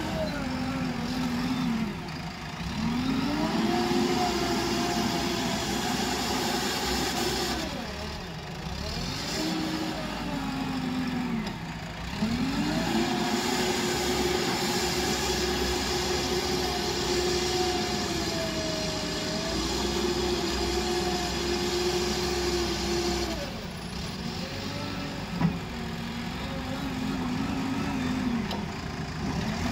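JCB 3DX backhoe loader's diesel engine running under load, revving up and holding for several seconds, then falling back toward idle, several times over as the loader bucket works a sand pile. A single sharp knock near the end.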